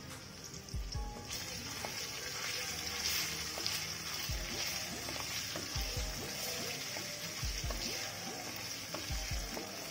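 Ginger paste sizzling in hot oil in a kadhai while it is stirred with a wooden spatula; the frying hiss grows louder about a second in.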